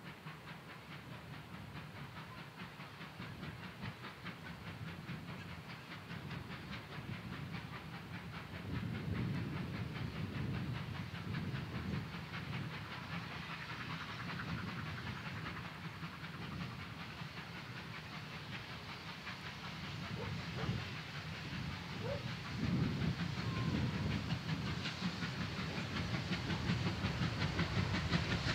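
Steam locomotive working hard, its exhaust beating fast and hissing, growing louder as the train draws closer, with wheels running on the rails.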